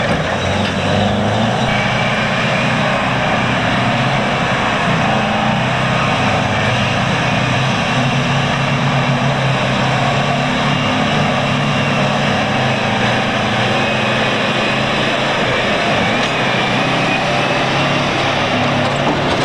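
Diesel engine of heavy earthmoving machinery running steadily and loudly under load, its pitch shifting slightly.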